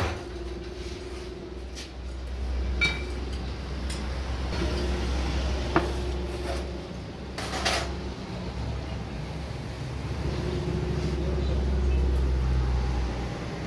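Metal tools and engine parts clinking now and then, a few sharp knocks among them, over a steady low machine rumble that swells twice.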